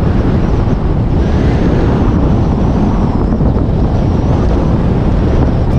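Wind buffeting the microphone of a camera on a moving bicycle: a loud, steady, low rushing noise.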